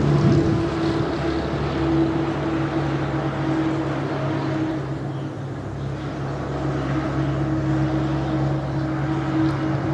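A steady engine drone, a low hum with a higher overtone that holds its pitch throughout.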